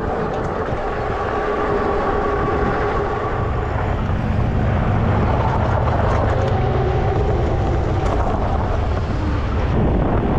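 Electric bike under way: tyres rolling on the path, a faint motor whine that shifts in pitch, and wind rumbling on the microphone, heavier from a few seconds in.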